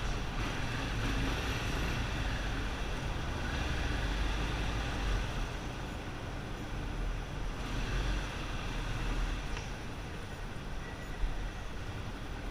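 Yamaha XTZ 250 Ténéré's single-cylinder engine running through a Roncar 2Way aftermarket exhaust, a steady low rumble that swells and eases a little.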